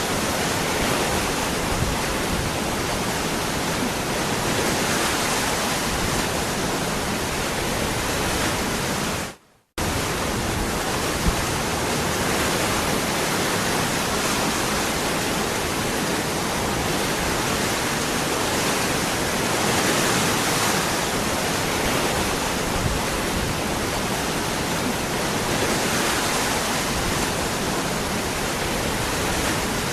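Waterfall: a steady, even rush of falling water. It drops out into a split second of silence about nine and a half seconds in, then carries on unchanged.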